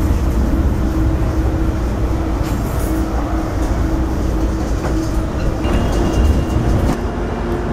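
Steady rumble of a moving Metrolink commuter train heard from inside the passenger car, the wheels running on the rails, with a faint hum that comes and goes.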